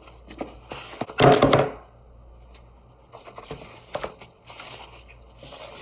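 A cardboard product box and its packaging handled and opened by hand: a loud rough tearing, ripping noise lasting about half a second, about a second in, then light rustling and small clicks of packaging and parts.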